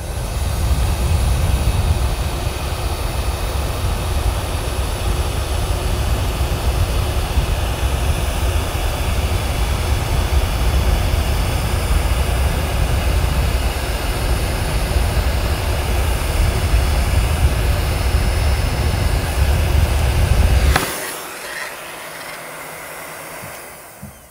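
Electric heat gun blowing hot air steadily to shrink heat-shrink tubing over a soldered conductor. It cuts off sharply about 21 seconds in, and a much fainter sound fades away after it.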